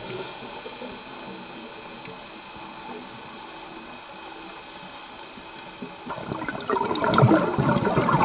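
Steady underwater hiss with faint steady tones, then from about six seconds in a scuba diver's regulator exhaling: a loud burst of bubbling gurgle.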